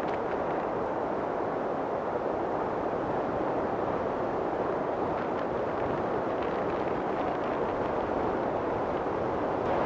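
Wind blowing over an exposed snowy mountain summit and buffeting the microphone: a steady rush of noise with no breaks.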